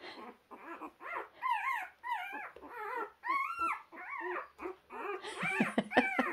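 Very young puppies whimpering: a quick string of short, high whines that rise and fall in pitch, growing louder near the end.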